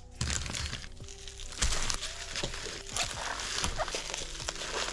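Bubble wrap and plastic packaging crinkling and rustling as bubble-wrapped wooden fingerboard ramps are lifted out and set down, with a couple of light knocks.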